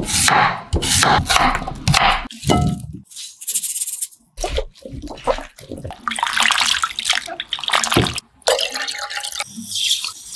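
A cleaver chopping a peeled white radish on a wooden board with a run of sharp knocks. Then hands stir and rinse the radish chunks in water in a glass bowl, and near the end water is poured into a glass pot.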